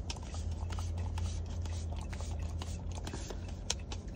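Basset hounds licking whipped cream out of paper cups, with quick wet tongue smacks and small clicks against the cup walls, over a low steady hum.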